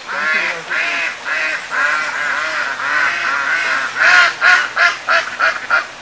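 Ducks quacking: a run of quacks, then from about four seconds in a quicker series of about six short, loud quacks.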